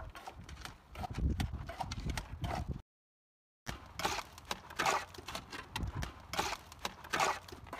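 Steel trowel scooping cement mortar from a metal pan and flinging it onto a block wall: a run of irregular scrapes, clinks and wet slaps, broken by a brief total silence about three seconds in.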